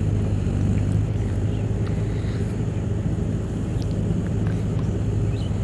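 Steady low engine hum, an unseen motor running continuously without change in pitch, with a few faint short high chirps over it.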